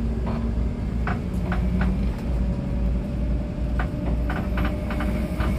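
Bus engine running with a steady low rumble and hum, with scattered short clicks and knocks over it.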